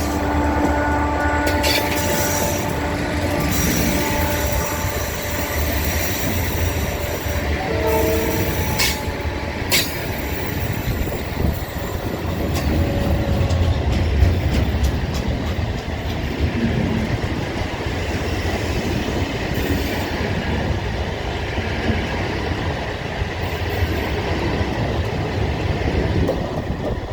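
Freight train rolling slowly past with a steady low rumble and scattered clacks of wheels over rail joints. The horn of diesel-electric locomotive DE 33077 holds a chord through the first few seconds and then stops. A high wheel squeal comes in a few seconds in.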